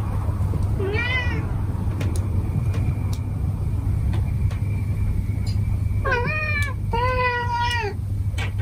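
Domestic cats meowing at a closed door while waiting to be fed. There is one meow about a second in, then two more near the end, the second one longer, over a steady low hum.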